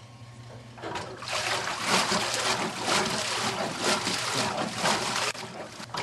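Water churning and sloshing in a wringer washer's tub as the Easy agitator starts up about a second in, the splashing coming in continual surges.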